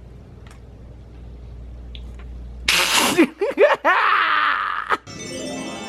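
A sudden loud, breathy vocal outburst about three seconds in, lasting about two seconds, with the voice sliding up and down. Music with steady notes starts near the end.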